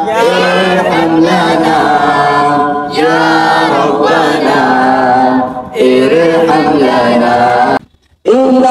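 Unaccompanied singing of a naat, an Urdu devotional poem recited in a drawn-out, melodic chant. The singing breaks off completely for a moment about eight seconds in, then resumes.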